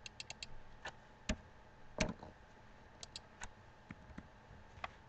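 Irregular clicking of a computer mouse and keyboard: a quick run of four clicks at the start, then about ten scattered clicks, with a louder knock about two seconds in.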